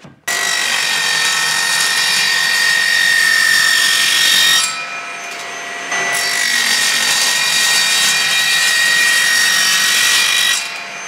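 Circular saw with a carbide-tipped wood blade cutting through aluminium angle: two cuts of about four seconds each, loud, with a steady high whine. Between the cuts and near the end the saw runs free, much quieter.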